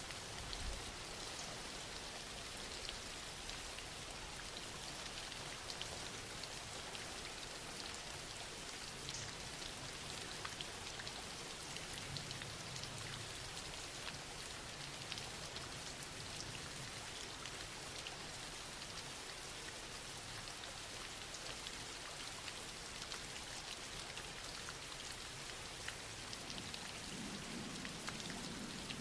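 Steady rain falling on a surface, an even hiss of many small drops ticking.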